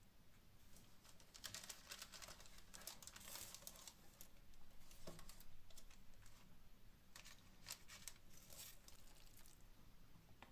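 Faint crinkling of baking parchment and the scrape of a fork spreading a grated ham-and-cheese mixture onto bread slices, in two spells of quick clicks and rustles, about a second in and again past the middle.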